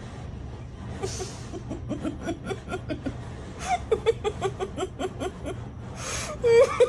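A rapid run of short laughing sounds, about four to five a second, ending in a louder voiced cry, over a steady low hum.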